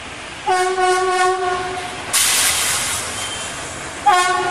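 Indian Railways electric locomotive horn sounding twice: a long blast of about a second and a half, then a short blast near the end. A loud burst of hiss lasting about a second falls between them, over the steady noise of passing trains.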